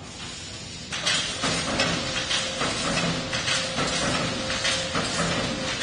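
Wire mesh spot welding machine at work: rhythmic clanking and crackling of the spot welds, about two to three strokes a second, starting about a second in, over a faint steady hum.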